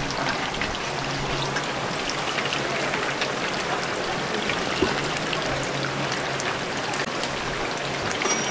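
Battered chicken pieces deep-frying in a fryer full of hot oil: a steady sizzle dotted with many small crackles.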